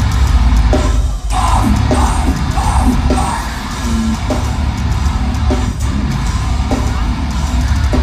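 Metalcore band playing live: heavy, low-tuned distorted guitars and bass with drums, and harsh shouted vocals over the top. The band stops for a moment about a second in, then crashes back in.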